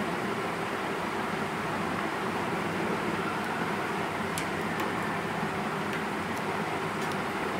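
Steady, even hiss of room background noise, with a few faint light clicks about halfway through as a felt-tip marker is handled and capped.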